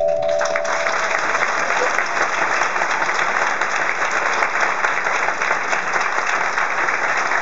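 Audience applauding after a song ends, with the band's last chord dying away in the first second.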